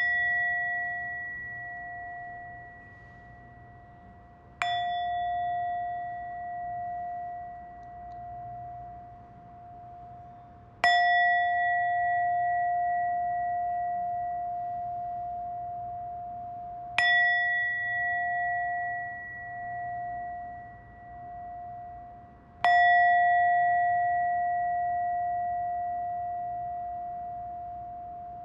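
A bell struck five times, about every five to six seconds. Each stroke rings on with one steady clear tone that wavers in loudness as it slowly fades.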